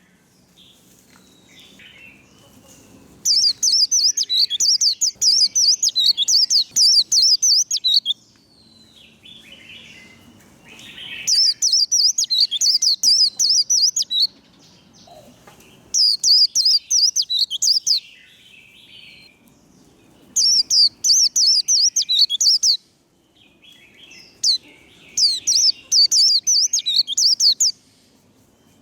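White-eye (vành khuyên) singing its fast, high twittering 'líu' competition warble in five bursts of a few seconds each, with faint softer chirps in the pauses between them.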